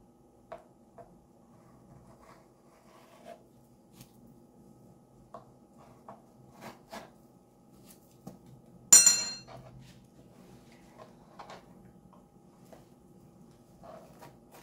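A kitchen knife slicing peeled plantains on a plastic cutting board, making small scattered taps and clicks. About nine seconds in comes one loud, sharp metallic clink that rings for about a second. A faint steady hum runs underneath.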